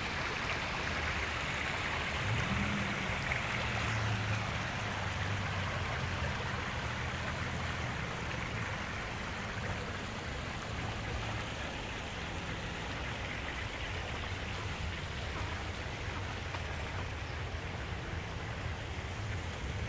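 Steady rush and splash of running water from a park pond's rock cascade and fountains, with a faint low hum underneath from about two seconds in.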